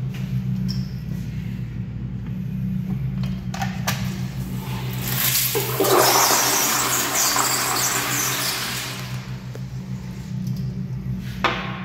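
Toilet flushing: a couple of sharp clicks, then a loud rush of water that starts about five seconds in, peaks quickly and tapers off over a few seconds as the bowl drains. A steady low hum runs underneath.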